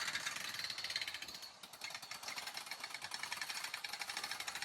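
Several 12-foot tent jacks being worked at once to raise a frame tent: a fast, continuous metallic clicking rattle that eases briefly about a second and a half in.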